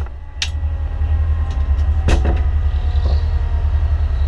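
Steady low engine and road rumble inside a fire engine's cab while it drives at highway speed, with a few sharp knocks or rattles near the start and about two seconds in.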